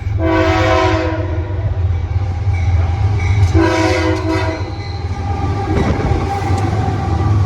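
Horn of a GE AC44i diesel-electric freight locomotive sounding two blasts of about a second each, a few seconds apart, over the steady low drone of the diesel engines.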